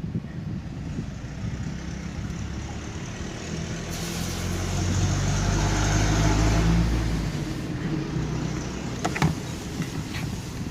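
An engine hum that swells over a few seconds and then fades, like a motor vehicle going by, with a sharp click near the end.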